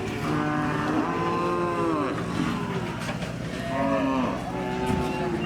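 Cattle mooing: long, drawn-out calls that rise and then fall in pitch, with one long call early on and several shorter ones near the end.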